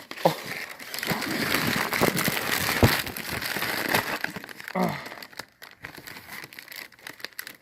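Packaging crinkling and rustling as it is handled and pulled open, dense for about five seconds, then thinning to scattered rustles and clicks.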